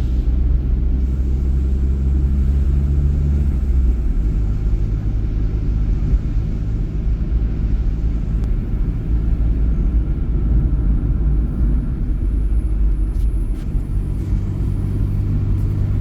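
Motor vehicle driving, its engine running steadily under low road rumble; the engine note changes about four seconds in and again near the end.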